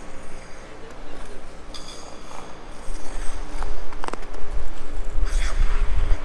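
Freshly sharpened figure skate blades gliding and scraping on rink ice, with two hissing scrapes and a sharp click about four seconds in, over a low rumble that builds from about halfway through.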